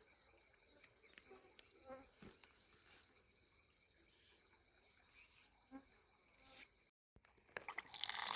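Faint, steady chorus of crickets trilling in the evening. It cuts out briefly about seven seconds in, and louder rustling noise comes in near the end.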